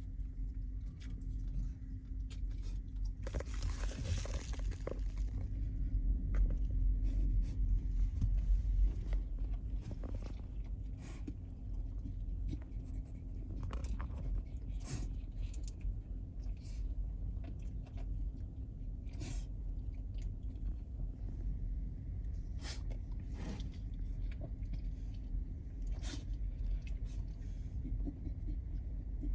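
Steady low rumble and hum of a ferry's engines, with scattered clicks and crackles over it and a brief hiss a few seconds in.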